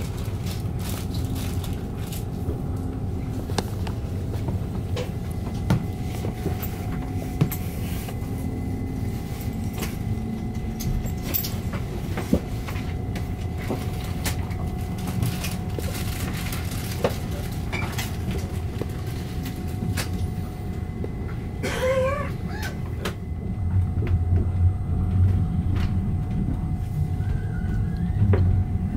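Moving train heard from inside the carriage: a steady running rumble with scattered clicks and knocks, growing louder near the end.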